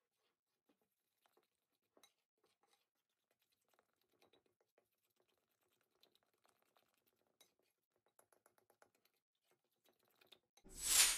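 Faint, scattered light clicks and scrapes of a utensil against a glazed bowl as pancake batter is stirred by hand. Near the end a sudden, much louder rush of noise cuts in.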